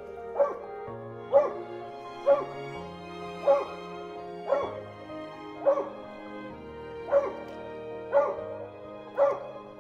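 Mountain cur barking at a squirrel up a tree, about one sharp bark a second, over background music.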